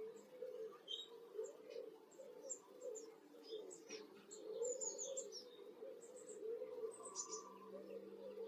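Small garden birds chirping: short, high notes scattered irregularly throughout, over a faint low wavering background sound.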